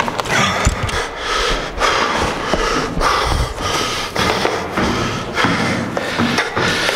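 A man panting heavily, out of breath from running up flights of stairs, with loud breaths coming about once a second and low footfalls on the steps between them.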